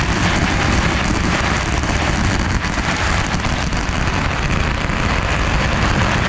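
A long string of firecrackers going off in a continuous dense crackle of rapid small bangs.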